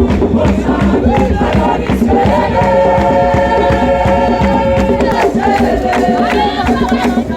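Background music with singing voices over a steady beat.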